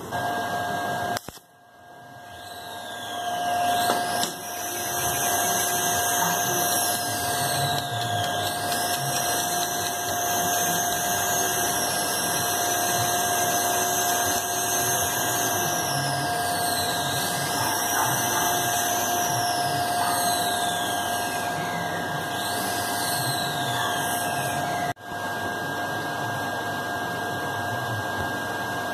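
A small electric motor runs steadily with a whine, and higher tones rise and fall every few seconds above it. The sound drops out briefly twice, once near the start and once near the end.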